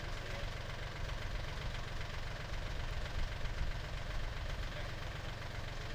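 Kubota L1-205 Sunshine tractor's diesel engine running steadily, its sound strongest low down.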